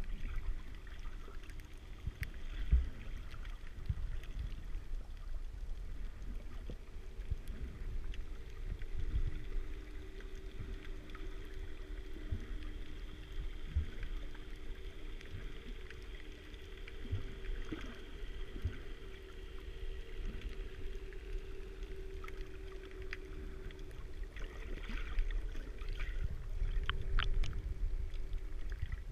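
Underwater sound picked up by a camera in a waterproof housing: muffled water movement with irregular low knocks, and a steady low hum under most of it. Scattered clicking comes in near the end.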